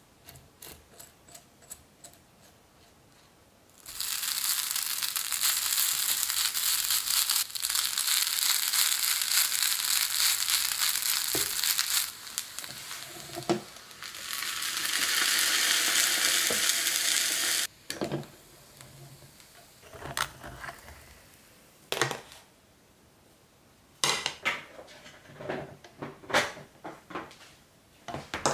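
Cooked rice sizzling and crackling on the hot oiled plates of a Moz DR800N waffle-and-nurungji maker as it crisps into nurungji. The sizzle starts about four seconds in, dips briefly, and cuts off sharply a little past halfway. Scattered clicks and knocks of the lid, tongs and plate follow.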